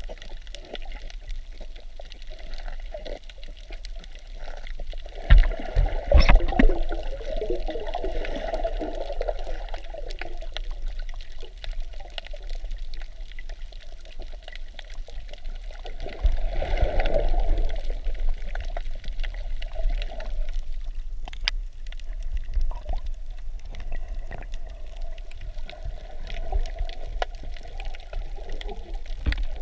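Water heard underwater through a GoPro's housing: a muffled gurgling and sloshing with a low rumble, swelling louder twice, about five seconds in and again about sixteen seconds in.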